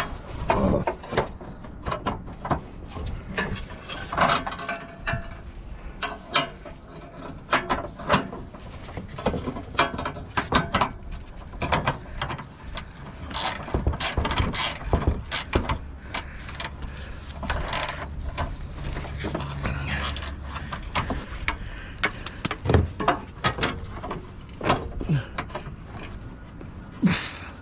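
Ratchet wrench clicking in short runs, with irregular metallic clicks and knocks as a bolt is worked out of the car's front end.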